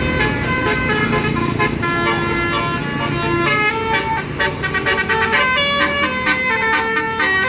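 A bus's multi-tone telolet (basuri) horn playing a tune: a run of held notes stepping up and down in pitch over the low rumble of the engine.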